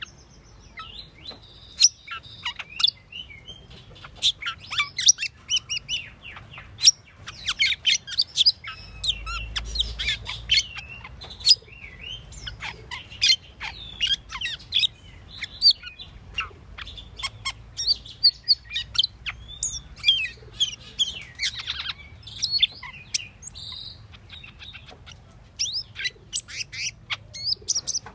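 Asian glossy starling singing: a rapid, continuous jumble of sharp chirps, squeaks and whistles, with a brief lull about three-quarters of the way through.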